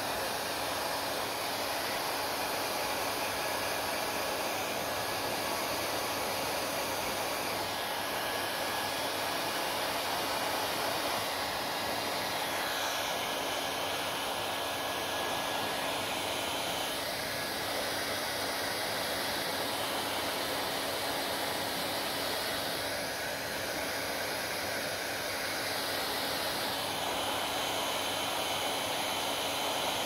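Hand-held hair dryer running, blowing a steady rush of air with a faint hum as it dries wet hair. Its tone shifts a little every few seconds.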